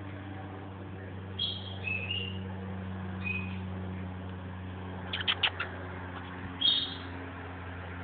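Meyer's parrot giving several short, high chirps, the last the loudest, with a quick run of four clicks about five seconds in. A steady low hum runs underneath.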